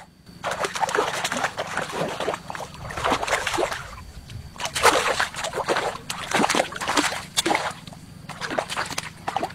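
A hooked fish thrashing at the water's surface close to the bank, in repeated irregular bursts of splashing and sloshing.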